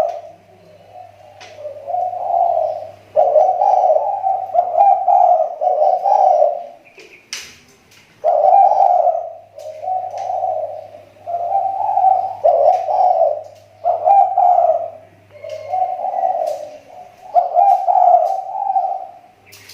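A spotted dove (tekukur) cooing over and over in rhythmic phrases, with a short break about seven seconds in, where a single sharp click is heard. It is a decoy bird whose call is said to be improving after a slump.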